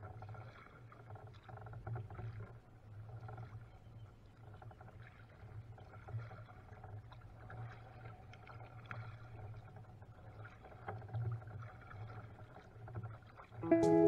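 Quiet river water around a kayak: faint small splashes and drips over a low steady rumble. Music comes in just before the end.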